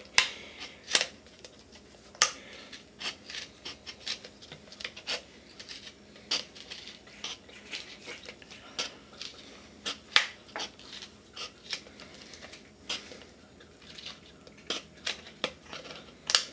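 Scissors snipping the thin plastic of a 2-liter soda bottle, trimming its opening: many short, sharp snips at an uneven pace.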